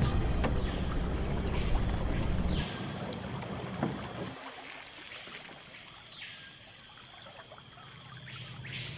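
Boat's outboard motor running with a low, steady hum; the hum drops about three seconds in and fades out a little after four seconds. What is left is quieter rainforest ambience in which a call rising, holding and falling back sounds three times, about three seconds apart.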